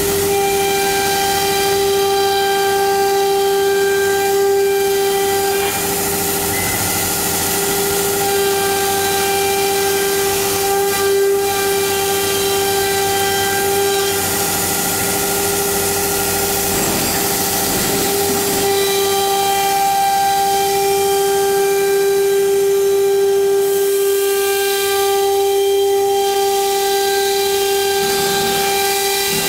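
CNC router spindle whining at a steady high pitch as its bit cuts outlines into an MDF board, over a constant hiss of cutting noise.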